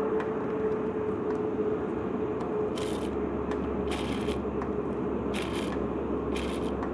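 Citroën Xantia X1 running with the noise of a faulty clutch release bearing: a steady mechanical din with a faint whine that fades a few seconds in. Four short, high-pitched hissing scrapes follow, about a second apart.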